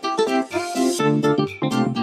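Background music: keyboard notes over a regular beat, with a short burst of hiss about half a second in.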